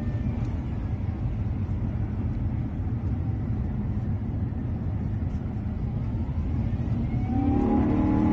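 Airbus A350's Rolls-Royce Trent XWB engines: a steady deep rumble. About seven seconds in, a set of pitched tones slides in, rising slightly, and the sound grows louder.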